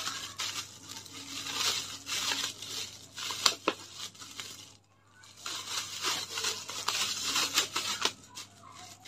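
Thin plastic bag crinkling and rustling as it is untied and pulled open by hand, with many short sharp crackles; it stops briefly about halfway through, then starts again.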